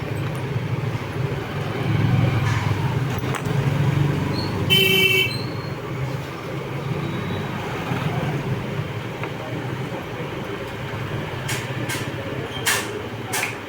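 Steady street traffic rumble, with one short vehicle horn toot about five seconds in and a few sharp clicks near the end.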